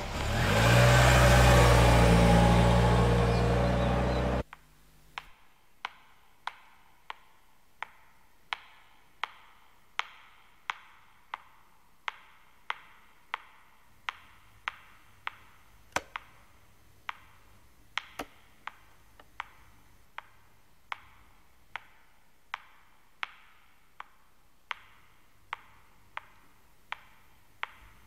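Police jeep's engine revving as it pulls away, cut off abruptly after about four seconds. Then a long run of faint, sharp ticks at an even pace, about three every two seconds.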